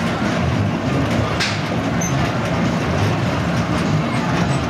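A Tilt-A-Whirl ride running: its cars and platform rolling round the track with a steady, uneven rumble and clatter. A short hiss cuts through about a second and a half in.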